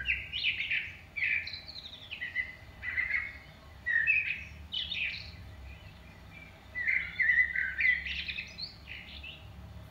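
A songbird singing in short warbling phrases, each about a second long, with brief pauses between them, over a faint steady hum.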